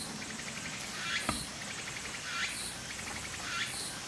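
Cleaver slicing cooked pork belly on a wooden chopping block, with one knock of the blade on the board about a second in. Behind it, a short chirping animal call repeats roughly once a second.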